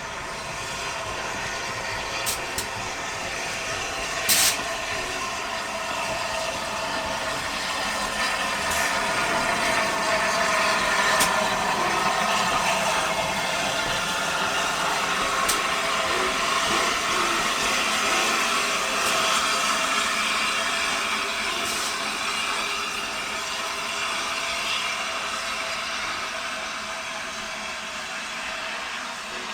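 Steam-hauled train rolling past, wheel and rail noise mixed with steam hiss, swelling toward the middle and easing off near the end, with a few sharp clicks in the first half.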